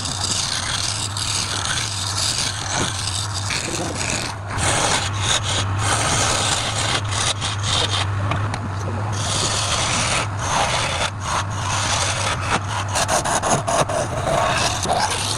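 Wood lathe motor humming steadily while a tool or abrasive rubs and scrapes against the spinning workpiece, a rough hiss that comes and goes in uneven strokes with brief breaks.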